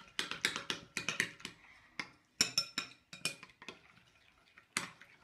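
Metal spoons clinking and scraping against glass bowls as thick slime is stirred: irregular clinks, thickest in the first second or so, then scattered strokes, with a sharp clink near the end.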